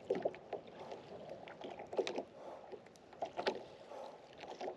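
Small waves lapping and slapping irregularly against the hull of a small skiff, several sharper slaps among softer splashes.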